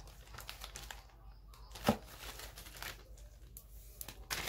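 Faint crinkling and rustling of a clear plastic sample packet being handled, with one sharp tap or knock about two seconds in.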